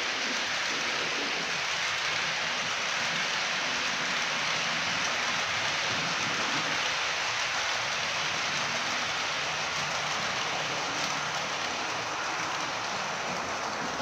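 Sound decoder of a Roco H0 model of an ÖBB class 1044 electric locomotive, playing a steady, unbroken hiss of the locomotive's cooling blowers (the noise behind its nickname "Alpenstaubsauger") with a faint low hum beneath.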